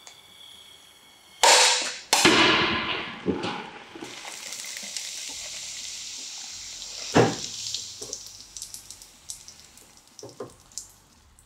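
John Heine 182a fly press ram crushing a full can of carbonated drink: a loud bang as the can bursts about a second and a half in and a second hit just after, then the drink sprays out and fizzes with a steady hiss. There is another sharp knock partway through the fizz and a few small ticks near the end.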